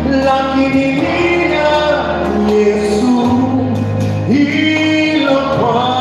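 A man singing solo into a microphone, holding long notes that glide from one pitch to the next, over a steady low sustained backing note that shifts about three seconds in.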